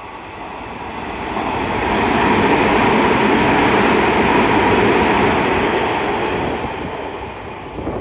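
Hanshin 9000 series electric train running through the station at speed: the wheels and rails make a steady roar that builds over the first two seconds, holds loud through the middle, and fades as the train goes by.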